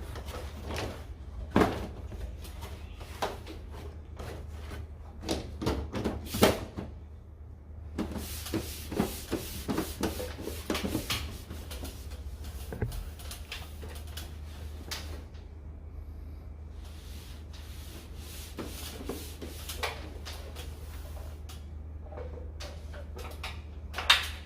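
Irregular clicks, knocks and rubbing of air-conditioner parts being handled during disassembly, with a few sharper knocks, over a steady low hum.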